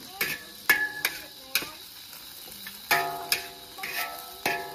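A metal spatula strikes and scrapes a large wok while stir-frying greens, each hit ringing briefly with a metallic tone. The clangs come in two irregular runs with a short pause in the middle, over faint sizzling.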